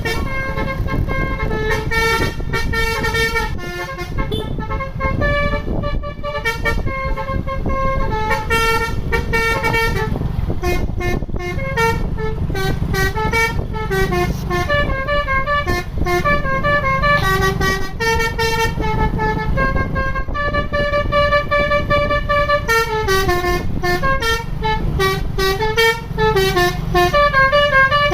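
Bus telolet horn: a bus's multi-tone musical horn playing a running melody of quick stepped toots, pausing briefly now and then, over a low engine rumble.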